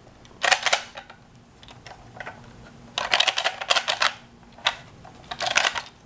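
Lego puzzle box shaken by hand, its plastic bricks and loose parts rattling and clacking in three bursts of clatter: briefly about half a second in, for about a second near the middle, and again near the end.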